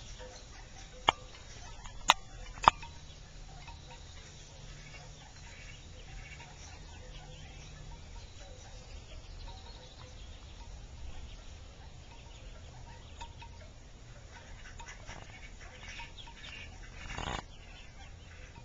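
Mallard hen and ducklings calling faintly over a low steady rumble, with three sharp clicks in the first few seconds and a brief louder noise near the end.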